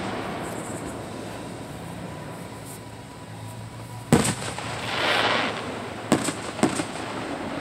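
Aerial firework shells bursting: one sharp bang about halfway through, a short rush of noise after it, then a few smaller bangs in quick succession a couple of seconds later, over steady background noise.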